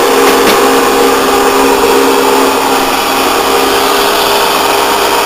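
Metal turret lathe on a test run, driven through V-belts by a 2 hp Brook AC electric motor: a steady running hum with a couple of constant tones and a faint click about half a second in.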